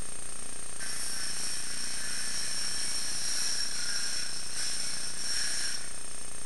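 Power saw cutting into the roof for a ventilation opening: a high-pitched cutting sound starts just under a second in, breaks off briefly after about four seconds, then cuts again and stops near the end.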